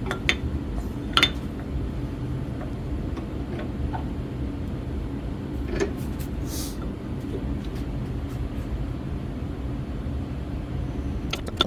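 A few light taps and clicks of hand tools and wood being handled during measuring and marking, with a brief scratchy stroke a little past halfway, over a steady low hum in the room.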